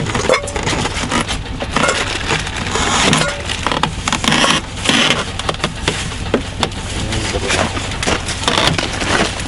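Close rustling of clothing with scattered clicks and clinks of metal pots and tableware as people eat, over a steady low hum.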